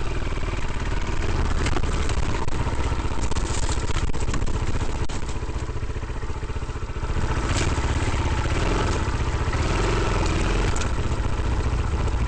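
Adventure motorcycle engine running while riding over rough, trackless ground, with clattering knocks from the bumps. The engine eases off briefly about six seconds in.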